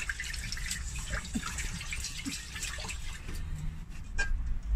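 Hand swishing and rubbing uncooked rice in water in a small stainless steel saucepan: continuous sloshing and dripping as the rice is washed, with a low knock near the end.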